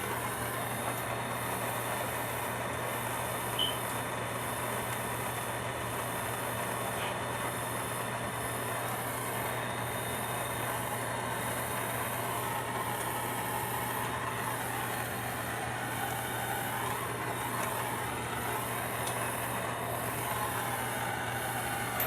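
Soldering torch flame burning with a steady hiss as a horizontal copper pipe joint is heated and soldered, with one brief tick about three and a half seconds in.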